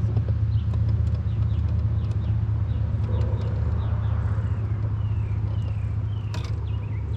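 A steady low rumble, with many short high chirps sliding downward in pitch, scattered throughout: small birds calling.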